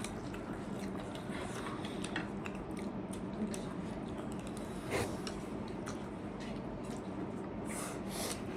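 People chewing and biting food close to the microphone, with scattered small clicks and one sharper click about five seconds in, over a steady low hum.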